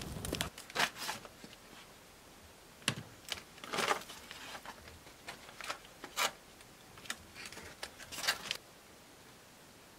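A low steady noise cuts off about half a second in, followed by scattered light clicks, taps and rustles of small things being handled, which stop about eight and a half seconds in.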